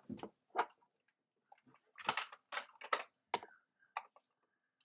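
Small plastic toy figures and vehicles handled and knocked together and against a hard surface: irregular sharp clicks and clacks, most of them bunched around the middle.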